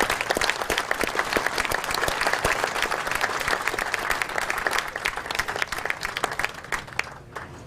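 Audience applauding, a dense clatter of many claps that dies away near the end.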